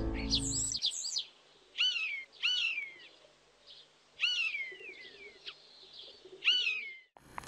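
A bird calling: a series of short, clear whistled calls, each sweeping up and then down in pitch, mostly in pairs with pauses between. Background music cuts off within the first second.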